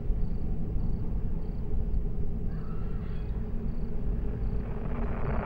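A low steady rumbling drone of ominous film ambience, with a faint short call about halfway through. Radio static starts to swell in near the end.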